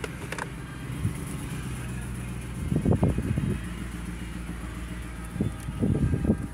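A car's engine running with a steady low hum, heard from inside the cabin. Two short bursts of rumbling bumps, about three and six seconds in, stand out over it.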